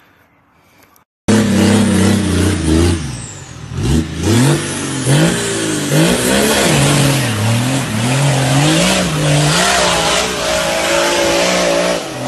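An engine-swapped Nissan Patrol off-roader revving hard, its pitch rising and falling over and over as the throttle is worked. It cuts in suddenly about a second in.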